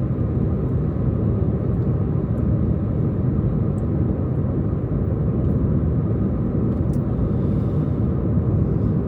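Steady low rumble of a car driving along a road: engine and tyre noise, even throughout.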